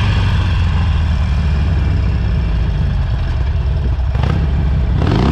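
Cruiser motorcycle engine running at low speed, a steady low rumble, with one short knock about four seconds in.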